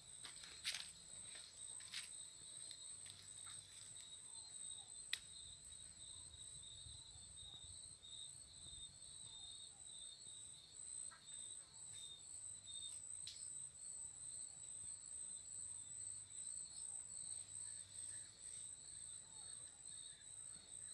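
Crickets chirping: a faint, steady, high pulsing trill, broken by a few sharp clicks, the loudest about five seconds in.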